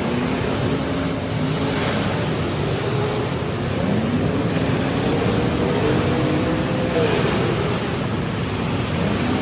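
Demolition derby car engines revving, their pitch rising and falling over a few seconds at a time, over a steady wash of noise.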